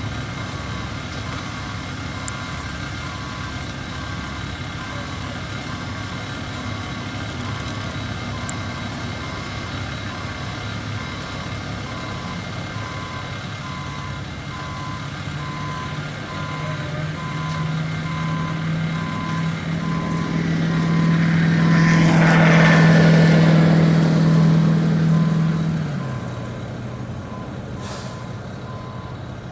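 Ready-mix concrete truck backing up with its reversing alarm beeping steadily. Its diesel engine revs up over several seconds with a rush of noise, then drops back sharply about 26 seconds in.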